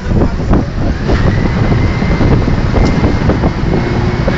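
Oil workover rig machinery running steadily on the rig floor, a heavy rumble with wind buffeting the microphone. About a second in, a faint high whine rises and then holds steady.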